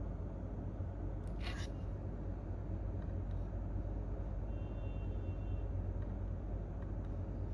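Office room tone at night: a steady low hum and rumble with no typing. There is one brief soft rustle about one and a half seconds in, and a faint high-pitched whine for about a second past the middle.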